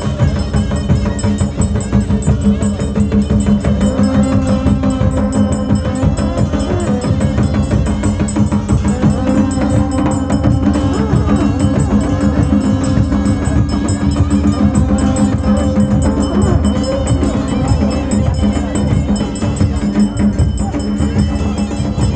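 Traditional Himachali temple band: long brass karnal horns holding long, steady notes over continuous drumming.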